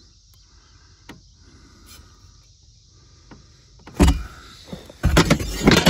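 Chainsaw parts being handled and shifted in a cardboard box: a few faint ticks, then a sudden loud knock about four seconds in and scraping and clunking from about five seconds in.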